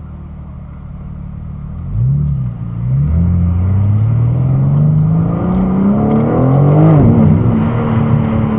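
BMW G80 M3's twin-turbo straight-six, heard from inside the car, idles and then accelerates hard from a standstill about two seconds in. The engine note climbs, dips with a quick upshift, then rises in a long pull. It drops with another upshift about seven seconds in and settles to a steady drone.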